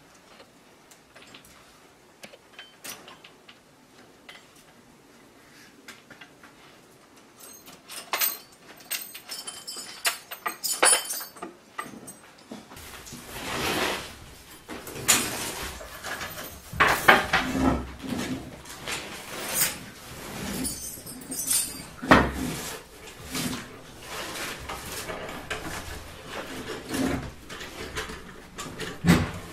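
Small metallic clicks and rattles of a door lock being worked by hand, faint at first and sharper after about eight seconds. From about halfway, louder irregular knocks and clatter take over.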